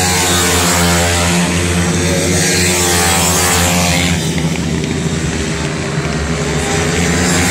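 Several 160 cc single-cylinder four-stroke pit bike engines running hard together in a race, their pitches rising and falling as the riders rev.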